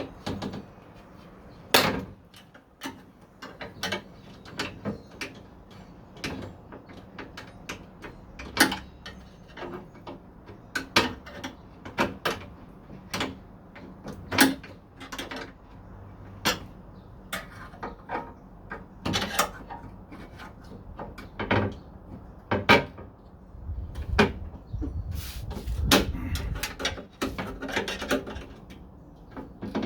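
Irregular metallic clicks, knocks and rattles as the window track and regulator hardware inside a car door is pried back and forth and worked loose. A low rumbling stretch comes about three-quarters of the way through.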